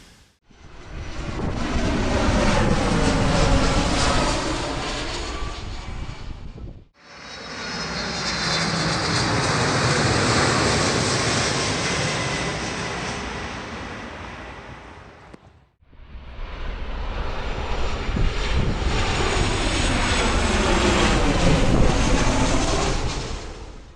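Airplane taking off, three separate clips one after another: each time the aircraft engine noise swells, holds with a high whine over it, and fades away, with a brief gap about a third and again two-thirds of the way through.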